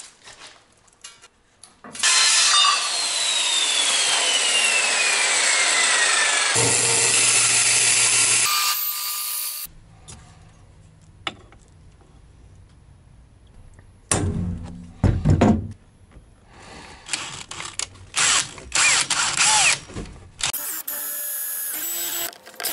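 A power tool runs for about seven seconds early on, with a slowly falling whine. Later a cordless drill bores through aluminum angle in short bursts, the bit squealing on the metal, with handling knocks in between.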